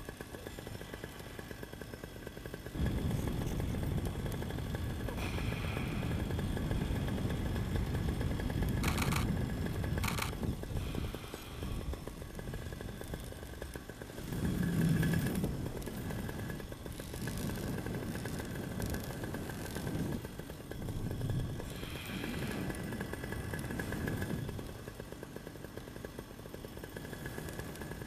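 Paramotor engine running in flight, a steady thin drone under a low rumble of wind on the microphone that swells and eases. Two brief clicks come about a third of the way in.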